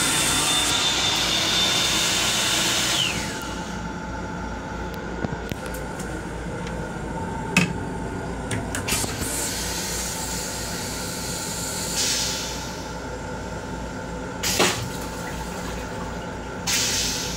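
Built-in hand dryer of an M7 railcar restroom blowing for about three seconds: its motor whines up to a steady high pitch, then winds down. After that the railcar's steady low rumble goes on, with a few scattered knocks.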